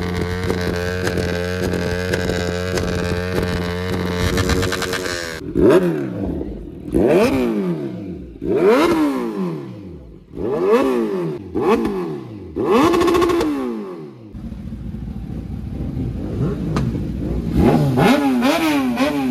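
Sport motorcycle engine idling steadily, then revved in five quick blips of the throttle, each pitch rising sharply and falling back, before settling to idle again. Near the end the engine pitch wavers up and down.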